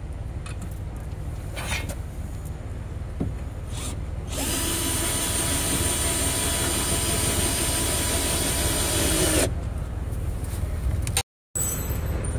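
Cordless drill-driver running steadily for about five seconds, starting about four seconds in, as it drives a long screw to fasten a bracket. Before it there is low background rumble with a few light knocks of handling, and near the end a brief dropout to silence.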